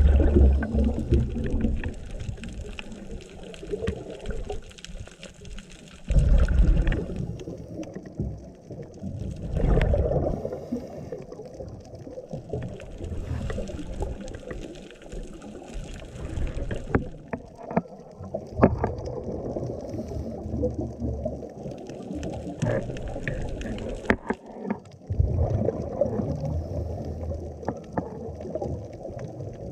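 Underwater sound of a scuba diver breathing through a regulator: exhaled bubbles rumble and gurgle in loud bursts a few seconds apart, with scattered sharp clicks between them.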